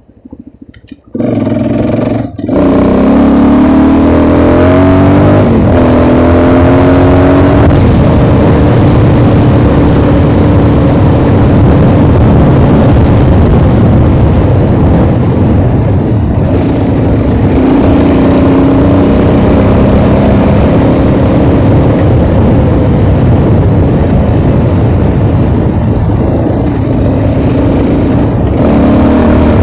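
Motorcycle engine pulling away and revving up through two gears about three and six seconds in, then cruising steadily under a loud rushing noise.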